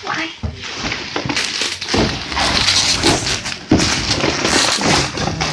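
A cardboard box and its packaging being cut and torn open by hand, an uneven run of crackling, scraping noise.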